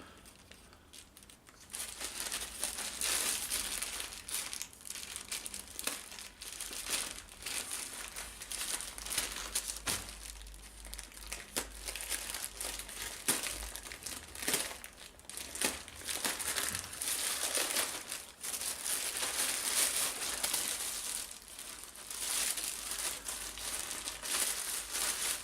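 Parcel packaging crinkling and rustling as it is pulled open and handled to get the tarp out, starting after a short quiet moment, with scattered small crackles.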